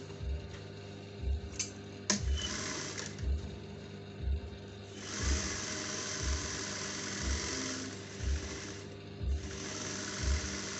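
Juki industrial sewing machine stitching, starting about halfway in, pausing briefly near the end and then running again. A sharp click about two seconds in, and background music with a slow, steady beat throughout.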